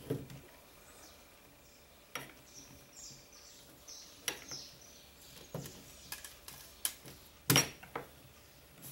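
Hands untying the twine on a burlap jute sack and opening it: rough fabric rustling and scraping, with scattered light knocks and clinks of the stainless-steel pieces inside. The sharpest knock comes about three-quarters of the way through.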